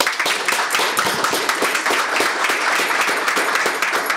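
Applause: a small group of people clapping steadily.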